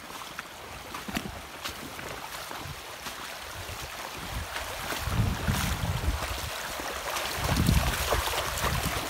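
Shallow river rippling over stones and weed, with a dog splashing through the water near the end. Gusts of wind buffet the microphone about halfway through and again shortly before the end.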